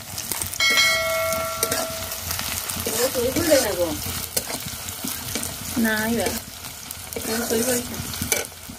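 Sliced onions sizzling as they fry in hot oil in a black iron kadai, with a spatula stirring and scraping against the pan; the onions are being browned. A brief steady tone sounds about half a second in, and a few short wavering calls are heard later in the background.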